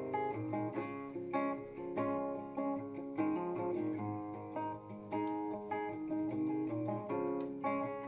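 Acoustic guitar played fingerstyle: a continuous run of plucked notes and chords that ring over one another.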